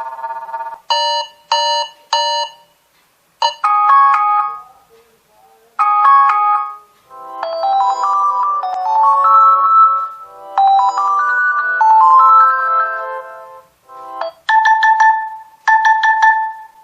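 Stock ringtone melodies of a Nokia 2.2 phone: short electronic tunes with brief gaps between them. Three quick chords come first, then two short phrases, a longer tune played twice, and two ringing notes near the end.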